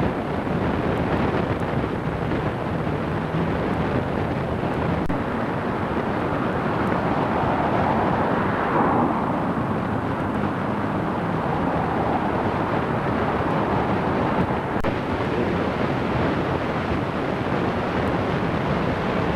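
Steady rushing wind noise on the microphone, swelling briefly about halfway through.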